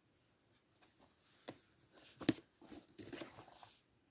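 Faint handling of plastic movie cases: a few sharp clacks and a short scraping rustle as the cases are moved.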